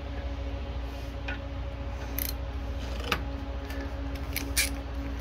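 Hand ratcheting driver with a socket clicking as it turns out a carburetor mounting bolt on a push mower: irregular short, sharp clicks, the loudest about three seconds in and near the end, over a steady low hum.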